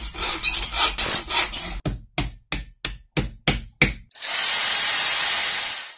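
A run of workshop tool sounds: first scraping and rubbing, then about seven quick, even strokes of a hand tool. A power tool then runs steadily with a thin high whine for about two seconds and stops.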